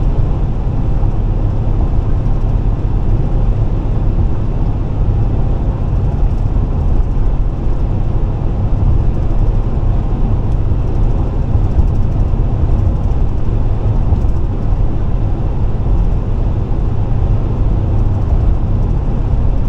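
Steady road noise of a car driving at highway speed: a constant low rumble with tyre and wind hiss, unchanging throughout.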